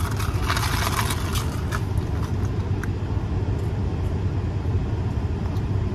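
Steady low hum of a car idling, heard from inside the cabin, with a brief burst of noise in the first second.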